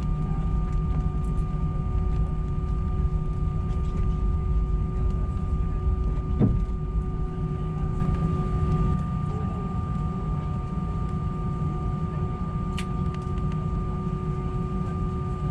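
Airbus A319 cabin noise on the ground after landing: a steady low rumble from the idling engines and air system, with steady whining tones running through it. A single short knock sounds about six and a half seconds in.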